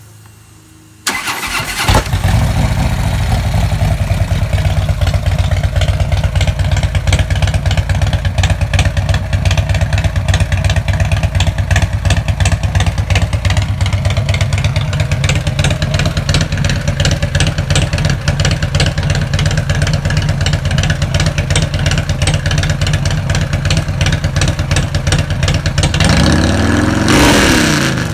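Harley-Davidson Street Glide's big-inch Cycle-Rama 124 V-twin started warm on the electric starter about a second in, then idling with a loud, steady pulse. It is revved up and back down briefly near the end.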